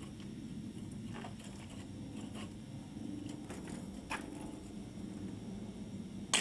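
Faint scrapes and taps of a hand working loose chunks of cracked stucco and brick, over a steady low hum, with one sharp click near the end.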